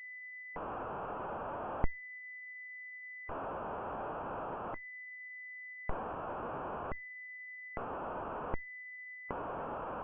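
Synthesised audio from a fractal sound explorer playing the orbit of a bistable Burning Ship Julia set: a steady high pure tone alternates with stretches of hissing noise, switching back and forth about five times, with clicks at some switches. The tone is the orbit settling into a simple repeating cycle; the hiss is the orbit running chaotically, depending on the starting point clicked.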